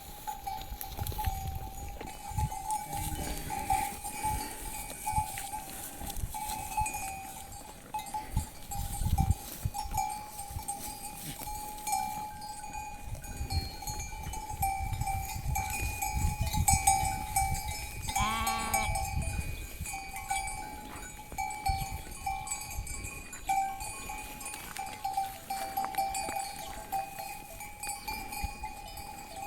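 Livestock bells ringing steadily, with a single short bleat about two-thirds of the way through and low rumbling gusts of wind on the microphone.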